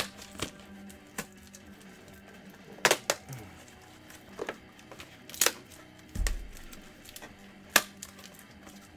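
Scattered sharp clicks and taps from a trading-card box and its packaging being handled on a table, with one dull thump about six seconds in.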